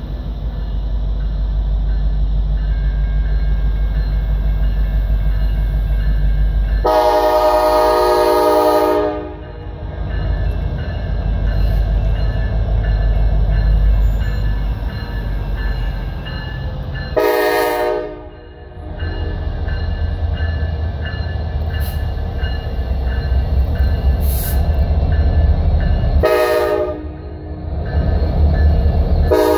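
Norfolk Southern freight train's diesel locomotives running as they approach and pass, their engine sound growing heavier about two-thirds of the way through. The lead locomotive's multi-chime air horn sounds a long blast about 7 s in, shorter blasts near 17 s and 26 s, and starts another right at the end.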